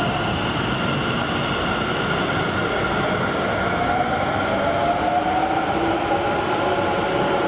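Taoyuan Airport MRT 1000-series commuter train running out of the station and gathering speed. Its running noise is steady, and its motors give a whine that rises in pitch from about halfway.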